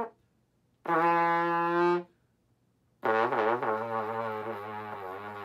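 B-flat valve trombone played with a Bach 1E trumpet mouthpiece: a held brass note of about a second, a pause, then from about three seconds in a lower note, the low E, held with a wavering pitch and slowly fading.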